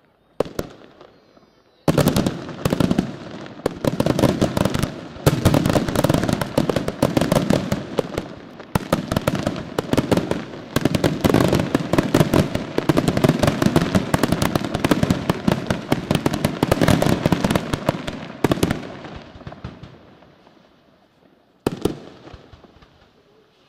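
Aerial fireworks bursting: one bang, then a long, dense run of rapid bangs and crackling that thins out and fades, with one more loud bang near the end.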